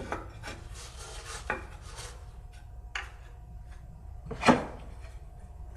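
Wooden workbench rungs, poplar, being handled and fitted: light rubbing with a few sharp wooden knocks, the loudest about four and a half seconds in.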